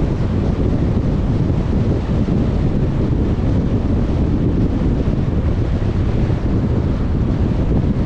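Steady low rumble of a car on the move: road, tyre and wind noise, even throughout with no engine note standing out.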